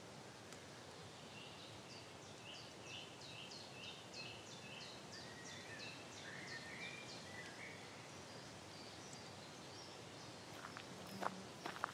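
Birdsong over a soft, steady outdoor hush: one bird repeats a short, high, falling note about twice a second for several seconds, while other birds warble more quietly. A few sharp clicks come near the end.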